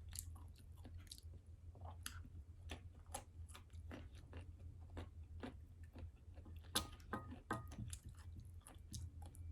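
A person chewing food, with faint, irregular mouth clicks and smacks over a low steady hum.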